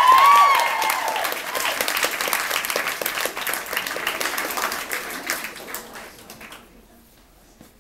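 Audience applauding, with loud whoops and cheers in the first second. The clapping gradually thins out and dies away about seven seconds in.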